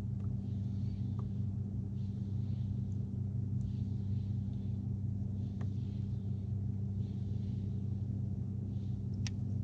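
A steady low mechanical hum, engine-like, with a few faint light clicks scattered through it.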